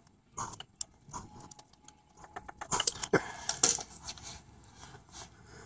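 Light metallic clinks and clatter as steel hose pliers and an aluminium oil cooler coolant pipe assembly are handled and set down on a concrete floor. The sharpest, loudest clinks come in a cluster about three seconds in.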